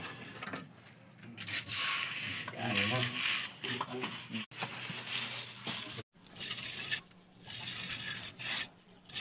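Steel trowel scraping and rubbing wet cement mortar along a concrete door jamb, in repeated strokes a second or more long with short breaks between them.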